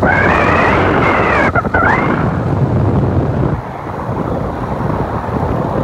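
A motor scooter being ridden, with wind rushing over the microphone. An engine whine rises and falls over the first couple of seconds, then steady riding noise.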